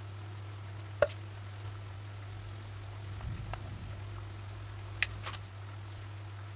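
Light taps as pieces of sushi are set down by hand on a wooden board: a sharp tap about a second in, a fainter one midway, and two quick taps about five seconds in, over a steady low hum.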